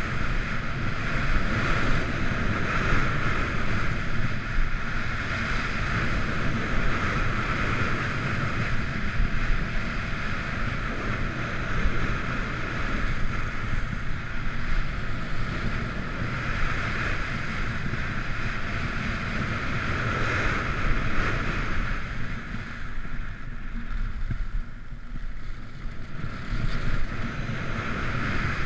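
Skis hissing over freshly groomed corduroy snow with wind rushing across the helmet-camera microphone, a steady rushing noise that eases for a few seconds near the end.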